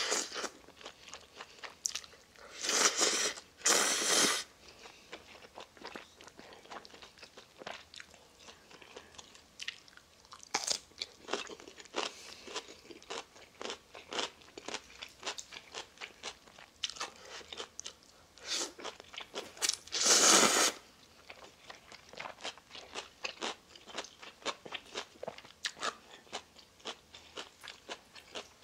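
Close-up eating of ramen noodles: three loud noodle slurps, two close together near the start and one about twenty seconds in, with steady wet chewing ticks in between.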